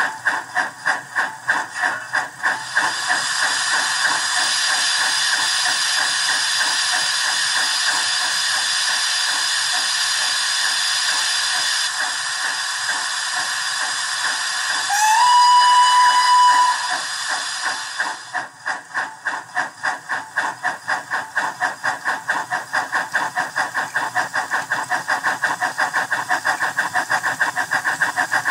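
Dapol Terrier model steam locomotive's Howes sound decoder playing through its speaker: rhythmic steam chuffing throughout, with a steady hiss of steam over it from a couple of seconds in until about two-thirds through. A short steam whistle sounds about halfway, rising briefly and then holding for about two seconds, the loudest moment.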